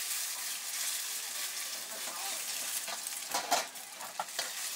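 Oil sizzling in a hot wok over a gas burner, with a metal ladle stirring and scraping in the pan. About three and a half seconds in, the ladle clanks loudly against the wok, followed by a few lighter taps.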